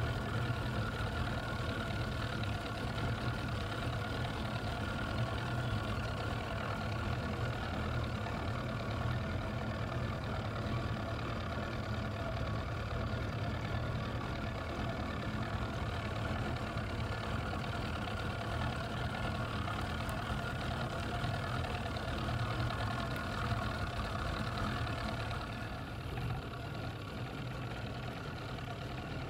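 A boat's outboard motor running steadily at low speed, a low even hum as the boat moves slowly through the water.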